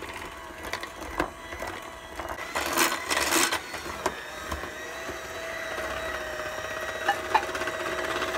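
KitchenAid electric hand mixer running with a steady motor whine, its beaters working flour into stiff cookie dough in a glass bowl. A few sharp clicks come as the beaters touch the glass.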